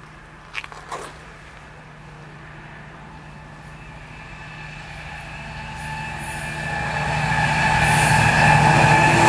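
Freightliner Class 70 diesel locomotive hauling a container train on approach, its engine drone with higher whining tones growing steadily louder as it nears. Two brief sharp clicks come about half a second and a second in.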